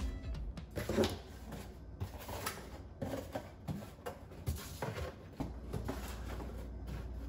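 Cardboard boxes being set down and slid along wooden pantry shelves: a series of light knocks and scrapes, the loudest about a second in.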